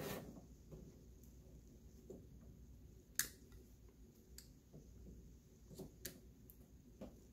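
Hand cutting pliers snipping and clicking on the plastic insulation of a copper wire while it is stripped by hand: a few faint sharp clicks, the loudest about three seconds in.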